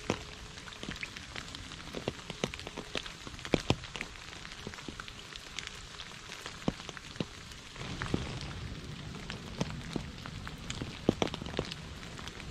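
Rain falling on a puddle and wet leaves: a steady patter with many separate drops plinking close by. About two-thirds of the way in, the lower background rush grows fuller and a little louder.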